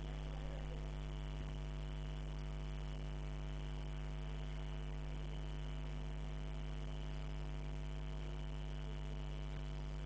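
Steady electrical mains hum: a low, even buzz with many overtones that does not change.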